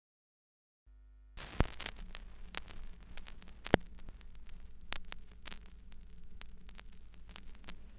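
Crackling static with irregular pops and clicks over a low hum, starting about a second and a half in, with two louder pops, much like worn record surface noise.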